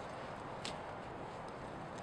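Campfire crackling, with a few sharp pops over a steady hiss.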